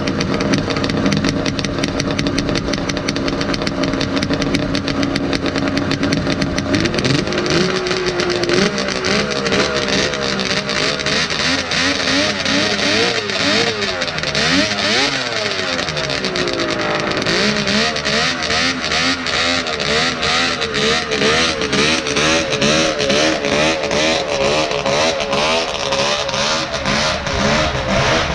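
Two-stroke snowmobile engine of a 1972 Ski-Doo Blizzard 797 idling steadily, then picking up about seven seconds in. For the rest it runs with its pitch going up and down again and again as the throttle is worked.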